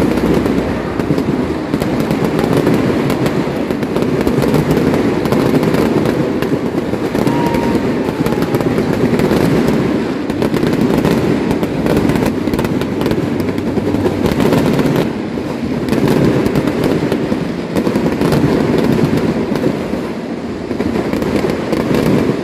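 Fireworks display: many aerial shells bursting at once in a dense, unbroken crackle of pops and bangs.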